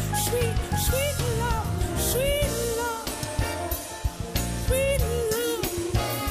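Live soul ballad: a band with drums and bass playing steadily while the lead singer sings drawn-out, wordless runs that slide and bend in pitch.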